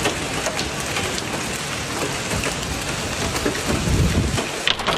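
Heavy rain falling steadily, with a low rumble swelling briefly about four seconds in.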